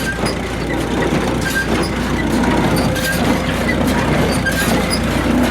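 International Harvester 47 hay baler running empty, driven by a tractor's power take-off: a dense mechanical clatter of knocks and clicks over the tractor engine's steady hum. It is the baler's first run under power after restoration, its freed-up mechanism freshly oiled and greased and breaking in.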